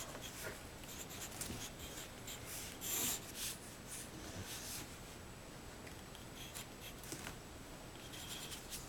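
Mechanical pencil scratching on paper as digits are written by hand, in short, faint strokes with pauses between, and one louder scrape about three seconds in.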